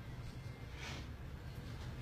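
Quiet room tone: a low steady hum with a faint short hiss about a second in.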